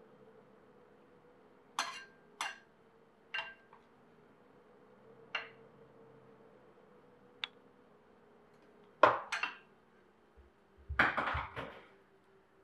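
A metal slotted utensil clinks against a ceramic bowl a few times as a veg tikki slice is dipped in flour slurry. Near the end come louder clatters and a cluster of knocks of utensil and crockery.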